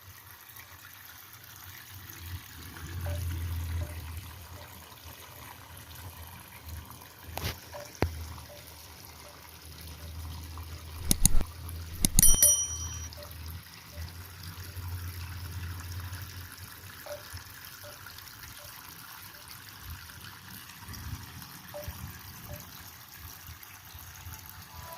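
Water trickling steadily in a small homemade waterfall aquarium over a low hum. A few sharp clicks or knocks come through, the loudest about halfway through, one with a brief ringing.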